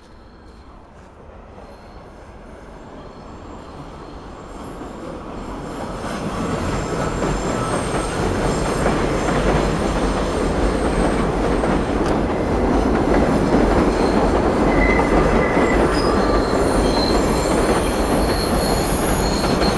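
Subway train coming close and running past, growing over several seconds into a loud steady rumble with high metallic wheel squeals.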